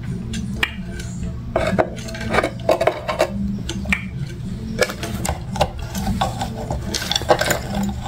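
African grey parrot making its own noises: a quick, irregular run of sharp clicks mixed with short squeaky vocal sounds.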